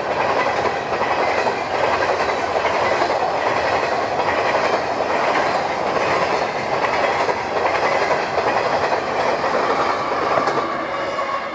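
Empty covered hopper cars of a freight train rolling past with a steady rumble and clickety-clack of wheels over the rail joints. Near the end, the engine of the train's rear locomotive adds a faint steady tone.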